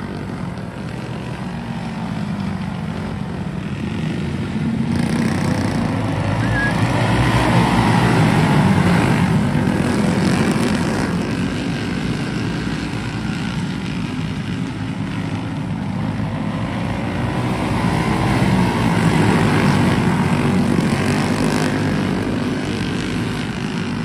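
A pack of winged dirt go-karts running around the track, their small engines sounding together as one steady drone that swells louder twice as the pack passes close.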